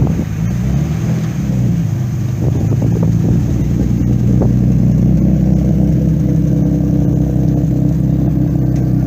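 Jaguar Mk2 saloon's straight-six engine running at low revs as the car pulls away, a steady deep note that rises and falls a little at first and grows louder a few seconds in.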